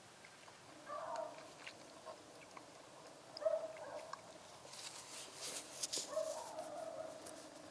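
Gloved fingers rubbing and rustling on a plastic oil bottle, with short whining squeaks every two to three seconds.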